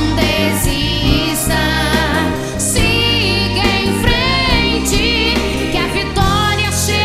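Gospel worship song in Portuguese: sung vocals over a band with bass and drums.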